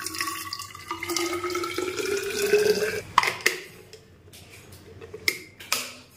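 Hot water is poured from a steel pot into a steel-lined insulated water bottle, its pitch rising steadily as the bottle fills. About three seconds in, the pouring stops and a few sharp plastic clicks follow as the cap is fitted and the flip lid is snapped shut.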